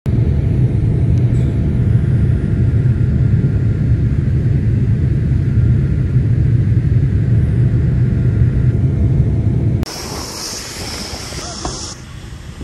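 Jet airliner cabin noise: a loud, steady low rumble of engines and airflow heard from inside the cabin. It cuts off abruptly about ten seconds in, giving way to a quieter hiss.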